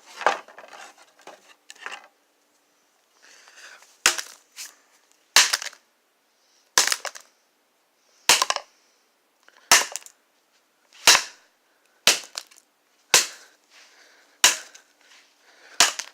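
A phone's battery being struck again and again with a hand tool: a steady series of sharp blows, roughly one every second and a half.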